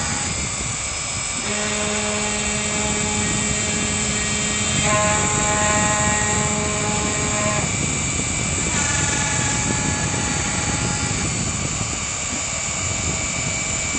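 CNC router engraving wood: the spindle runs with a steady whine, while the stepper-driven axes add tones that jump to new pitches every few seconds as the cutter changes direction and speed.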